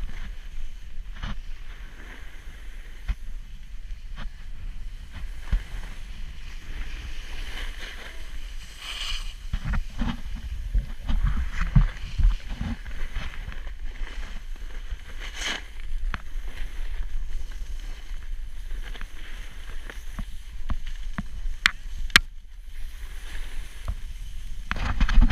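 Snowboard sliding and scraping over packed snow during a run, with wind rumbling on the microphone and a few sharp knocks along the way.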